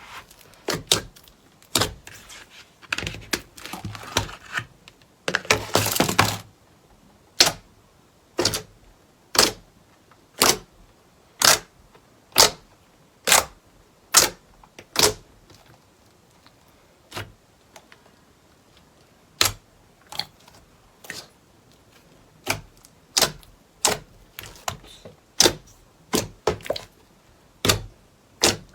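Slime being worked by hand: dense crinkly crackling for the first six seconds, then sharp separate pops about once a second.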